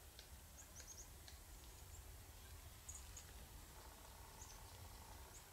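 Near silence in an open field: a faint low wind rumble with a few faint, very short high chirps scattered through it.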